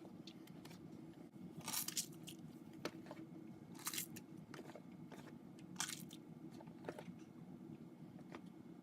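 Old slime being squished and worked by hand in a little warm water with foaming hand soap: faint, irregular wet crackles and squelches, with a few louder ones about two, four and six seconds in.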